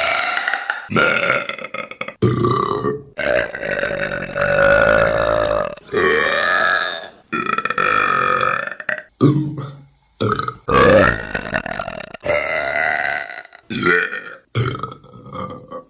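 Women burping, about a dozen burps one after another with abrupt cuts between them. Some are short, others long and drawn out, the longest lasting over two seconds.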